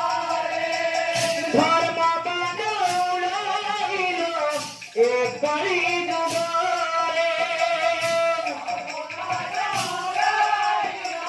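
Sambalpuri devotional kirtan: a male voice singing a chant through a microphone, accompanied by hand cymbals and a two-headed hand drum, with a cymbal clash every couple of seconds. The singing breaks off briefly about halfway through.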